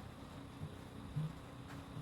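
Faint steady low hum with a few soft, short low sounds over it.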